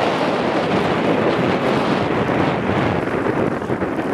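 Loud, steady rush of wind buffeting the camera's microphone as a snowboarder rides downhill through deep powder, easing slightly near the end.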